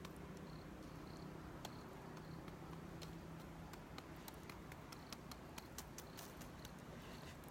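Wood campfire crackling, with irregular sharp snaps and pops over a steady low rumble.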